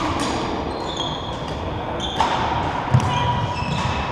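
Badminton play on a wooden sports-hall floor: sharp racket-on-shuttlecock hits or footfalls at the start and about two and three seconds in, with short high shoe squeaks, echoing in the large hall.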